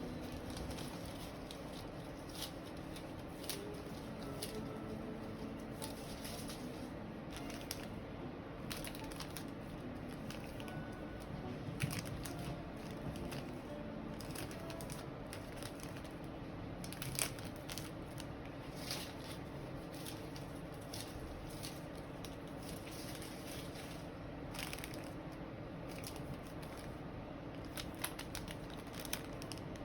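Scattered small clicks and crinkling handling sounds over a steady low hum, with two sharper clicks standing out, one near the middle and one a few seconds later.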